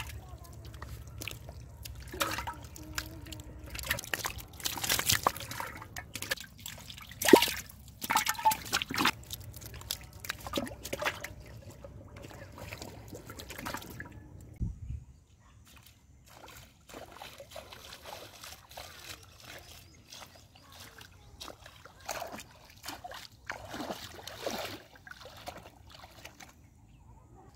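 Shallow pond water and wet mud splashing, sloshing and trickling in irregular bursts, with the sharpest splashes in the first half; after about 15 seconds in, the splashing is quieter and sparser.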